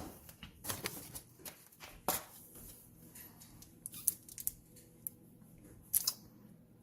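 Faint scattered clicks and rustles of squeeze bottles of condiments being handled and squeezed over a bowl, a few sharp ticks spread a second or two apart.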